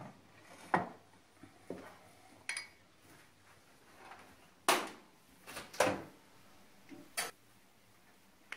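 Kitchen handling sounds: a glass baking dish knocked and clinked as it is moved and set into an oven, about seven separate knocks, the loudest two about five and six seconds in.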